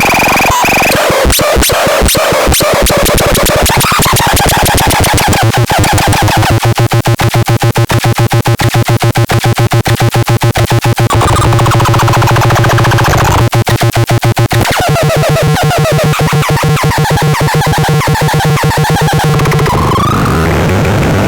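Loud, harsh electronic sounds: buzzing tones mixed with noise, pulsing rapidly, switching pattern several times, with a stuttering pulse in the middle and a rising glide near the end.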